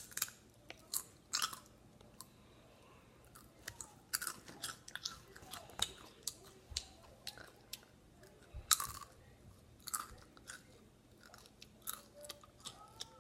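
Someone biting and chewing potato chips close to the microphone: irregular crisp crunches and crackles, some sharper bites among them.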